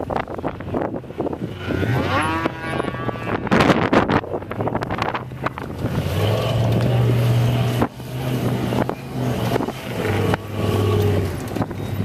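Ultra4 rock-racing car's engine revving up and easing off in repeated bursts as it crawls over boulders, with a long stretch of heavy running under load from about halfway through.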